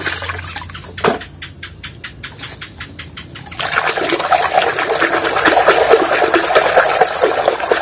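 A hand scrubbing and swishing a plastic toy train in a basin of muddy water, giving sloshing and splashing. It is quieter at first, with a run of faint ticks, then turns into loud, continuous splashing about three and a half seconds in as the toy is worked vigorously under the water.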